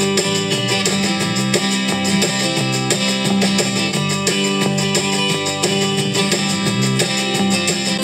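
Guitar-led music playing through a 6.5-inch car speaker mounted in a carpeted box, as a sound test of the speaker.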